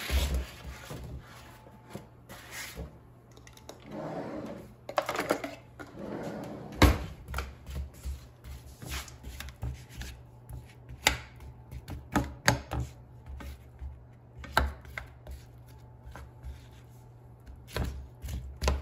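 Raw pear slices tumbling from a cutting board into a nonstick frying pan, then a spatula scraping and knocking against the pan as it pushes the pears around, in irregular clacks and taps. The oil is not yet hot, so there is no sizzle.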